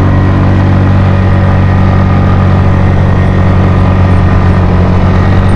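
Suzuki Skydrive scooter engine running hard at a steady pitch under open throttle, carrying two riders up a steep climb.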